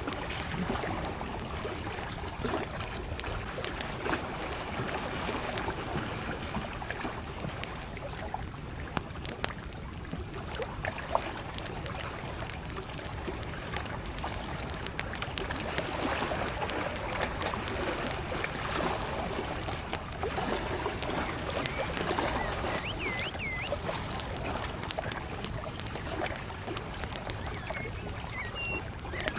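Wood campfire crackling with frequent small sharp pops, over the steady lapping of gentle lake waves. A distant bird gives a few short chirps about two-thirds of the way through.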